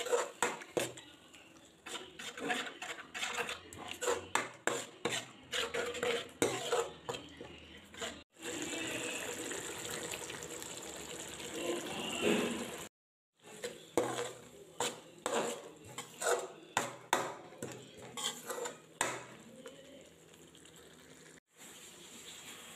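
A slotted steel spoon scraping and clinking against a steel pan while stirring a wet masala, in two stretches of quick knocks. Between them is a steadier stretch of sizzling and bubbling from the masala in the pan.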